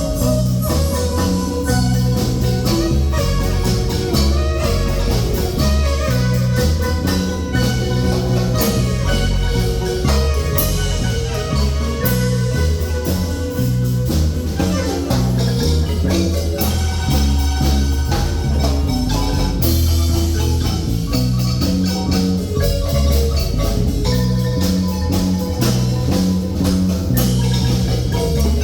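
Marimba band music: fast mallet notes on the marimba over a strong, steady bass and percussion, playing continuously.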